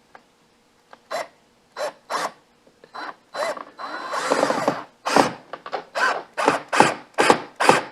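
Cordless drill driving a screw into the folding door's top rail bracket in short trigger bursts, with one longer run about four seconds in; the bursts come quicker, about two or three a second, near the end.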